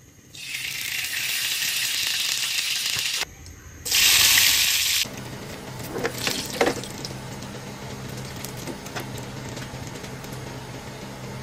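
Loud steady hissing for about three seconds, then again for about a second, each cutting off abruptly. After that, garlic cloves and a dried red chilli fry in oil in a pan, a light crackling sizzle with a few sharper pops about six seconds in and a low hum underneath.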